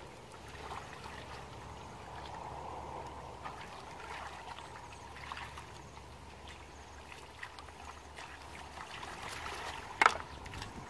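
Shallow muddy water sloshing and trickling as hands and feet work through the mud, with scattered small splashes and one sharp smack near the end.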